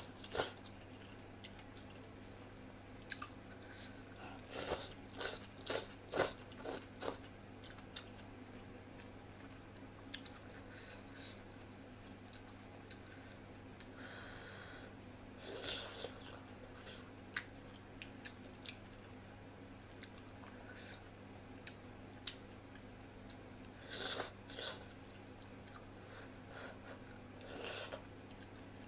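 A person chewing instant ramen noodles close to the microphone, in short clusters of bites and chews with quiet pauses between, over a low steady hum.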